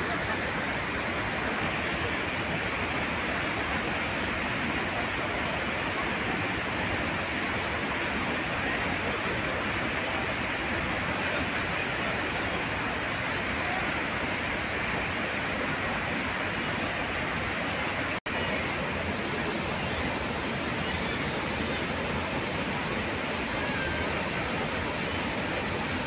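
Steady rushing roar of a large waterfall in monsoon spate, mixed with heavy rain falling through the forest. It breaks off for an instant about two-thirds of the way through.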